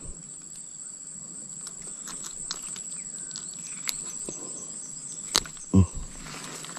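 Insects chirring outdoors, a steady high-pitched buzz, with a few faint clicks and a brief low voice sound near the end.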